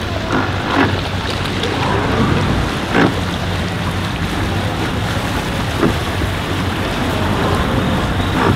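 Outboard boat engines idling low under a steady wash of water noise, with a few sharp knocks, the loudest about three seconds in.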